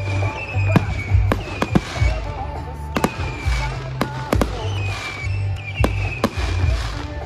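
Fireworks shells bursting in the air, about a dozen sharp bangs at uneven intervals, over music with a deep bass line.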